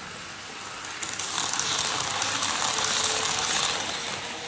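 N-gauge model train of the KiHa 81/82 series running past on its track, a rattling clatter of wheels, motor and running gear that swells about a second in and fades near the end.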